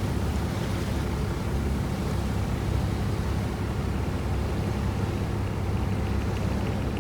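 Water bus engine running steadily under way, a low even drone, with the wash of waves and wind noise over it.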